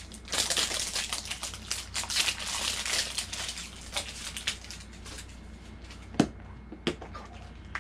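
Plastic blind-box capsules and their wrapping being handled and worked open, with a dense crinkling and crackling for the first few seconds. Near the end come two sharp plastic clicks as a capsule snaps open.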